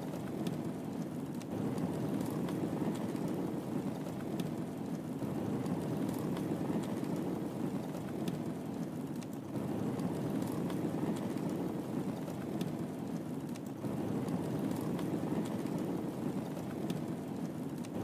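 Wood fire crackling in a fireplace: a steady low rush of burning with small sharp pops and snaps scattered throughout.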